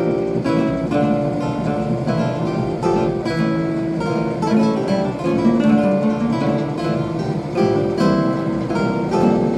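Acoustic guitar strumming chords in a three-beat waltz time.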